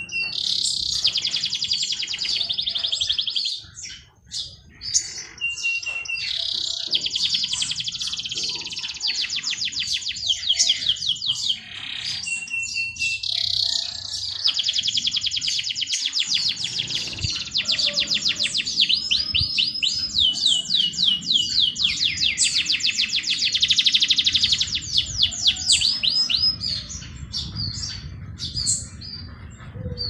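A songbird singing long, very rapid high trills that run for several seconds at a time, several of them opening with a short steady whistle.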